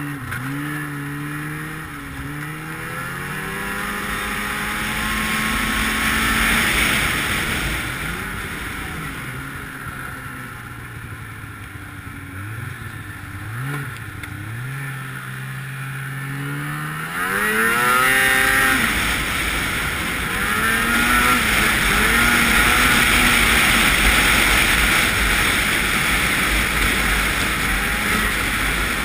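Ski-Doo 800 two-stroke snowmobile engine heard from on board, its revs rising and falling with the throttle and a few quick blips past the middle. Near the end of the first two-thirds it revs up hard, and it then runs at speed with a loud rushing noise.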